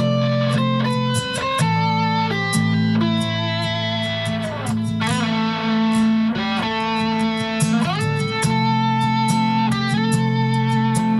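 Nylon-string guitar played through an amplifier in an ambient style: picked melody notes that ring on, with a few sliding notes, over a steady low drone.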